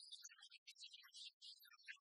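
Near silence: only faint, broken high-pitched traces.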